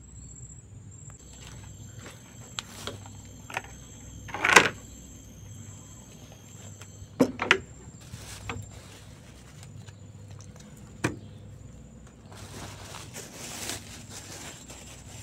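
Scattered knocks, clicks and clatter of an inflatable rubber boat and its pump being handled and set up, turning to a rustling hiss near the end, over a steady high insect drone.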